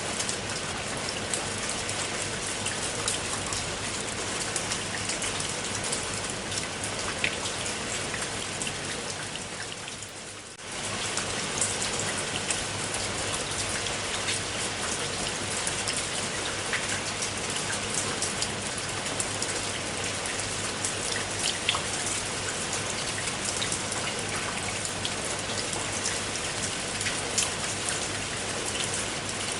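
Steady rain with many individual drops clicking on a hard surface. About ten seconds in it briefly fades and then comes straight back.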